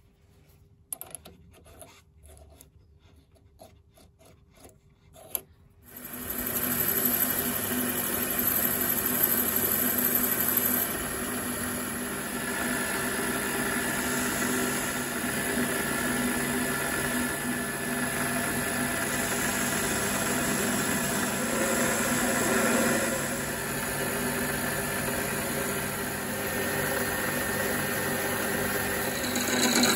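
A few light clicks of metal parts being handled. About six seconds in, a mini lathe starts and runs with a steady whine while a tool cuts spinning aluminium stock. Near the end, a twist drill bores into the turning workpiece.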